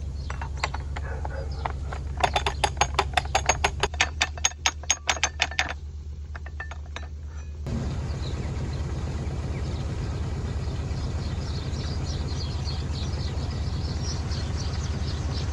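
Lock paddle gear's ratchet clicking at about four clicks a second as the ground paddle is wound up with a windlass, over a narrowboat's diesel engine running steadily. About halfway through the clicking stops and a steady rush of water filling the lock takes over.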